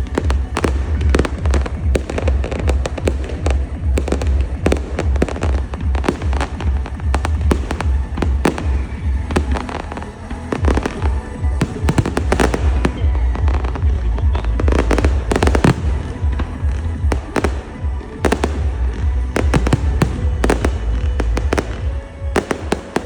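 Fireworks going off in a continuous barrage: many sharp bangs and crackles every second over a steady deep rumble, with a short lull about ten seconds in.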